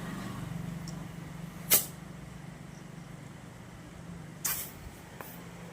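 Steady low hum of an air compressor while an e-rickshaw tyre is inflated, with two short sharp hisses of air, one near the start and one near the end.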